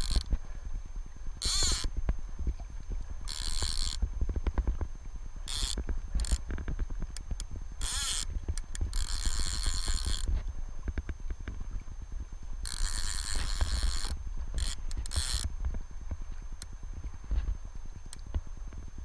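Fly reel's ratchet buzzing in about ten short bursts, the longest over a second, as a hooked steelhead pulls line off. Rapid clicking runs between the bursts.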